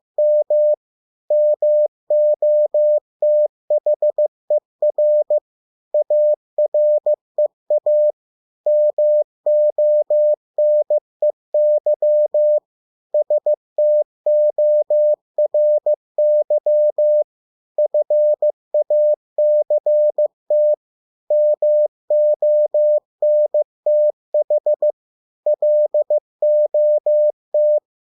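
Morse code (CW) practice tone sending English words at 15 words per minute: a single steady-pitched beep keyed on and off in short dots and longer dashes, with brief pauses between words.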